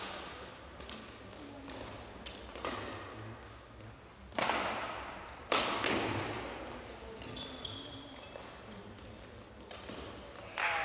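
Badminton racket strikes on a shuttlecock during a rally, sharp hits one to two seconds apart that ring in the hall, the loudest two near the middle, with a short high shoe squeak on the court floor after them. Applause breaks out right at the end as the rally ends.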